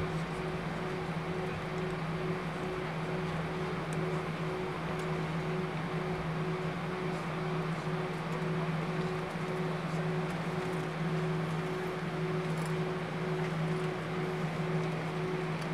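Airbus A320 cabin noise while the airliner rolls along the runway after touchdown: a steady engine and rolling rumble heard from inside the cabin, with two steady low hums running under it.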